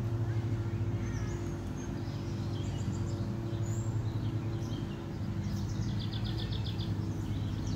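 Outdoor ambience: a steady low hum, with songbirds chirping and one rapid bird trill about six seconds in.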